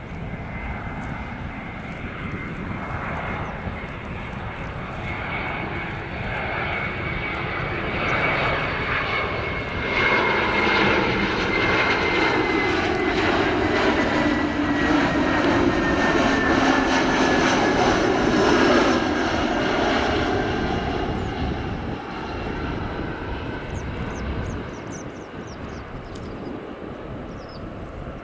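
Airbus A321ceo airliner on final approach passing low overhead: the jet engine noise builds, is loudest for about ten seconds, then fades as it moves away, with a high engine whine falling slowly in pitch as it goes past.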